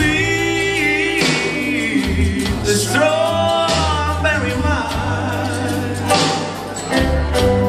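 Male singer performing a slow country-soul ballad live through a microphone and PA, with long held, slightly bending notes over keyboard and bass accompaniment.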